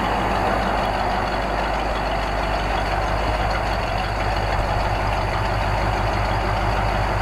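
Ford F5 cab-over truck's V8 engine idling steadily, its exhaust note running without change.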